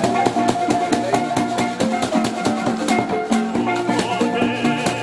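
Marimba ensemble playing a lively tune: several wooden marimbas struck with mallets in quick interlocking notes, with a handheld shaker keeping a fast steady pulse.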